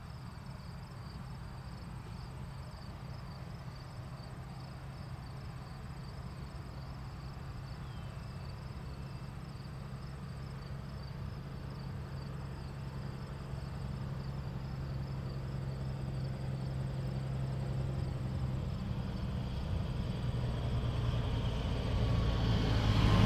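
Low, steady diesel engine hum that slowly grows louder, with crickets trilling steadily throughout.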